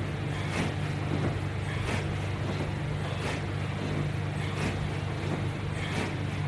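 A person doing strapped crunches: soft, brief swishes recur about once every 1.3 seconds, one with each repetition, over a steady low hum.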